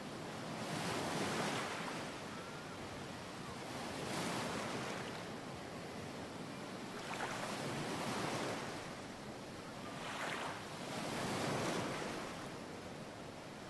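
Ocean surf: a steady wash of noise that swells and recedes about every three to four seconds as waves break and wash in.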